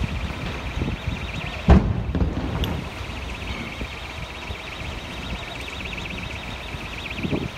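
An alarm ringing steadily, with a fast repeating pulse, over a low rumble of wind on the microphone. There is a single loud bang about two seconds in.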